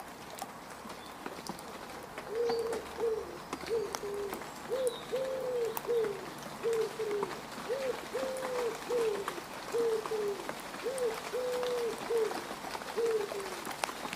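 Rain falling and dripping onto mud, a steady patter with scattered drop clicks. About two seconds in, a bird starts calling a low three-note phrase over and over on top of the rain.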